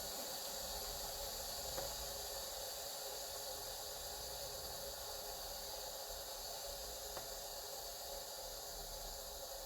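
Instant Pot electric pressure cooker venting steam through its quick-release valve: a steady hiss that slowly weakens as the pressure falls, with two faint ticks.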